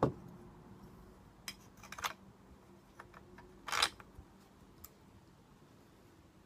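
Light metallic clicks and rattles of a saw chain and guide bar being handled and fitted onto a chainsaw, with a sharp click at the start and a short scrape about three and a half seconds in.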